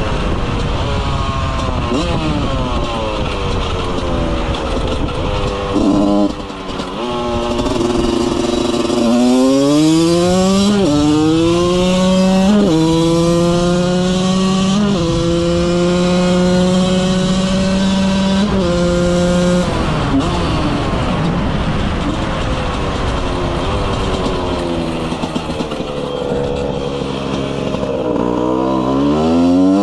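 Husqvarna SM/CR125 two-stroke 125 cc motorcycle engine, with an HTM head, a Keihin 36 carburettor and a CR 7T cylinder, running under load. From about nine seconds in it accelerates hard through the gears, the pitch climbing and dropping back at each of about four upshifts. It then eases off and revs up again near the end.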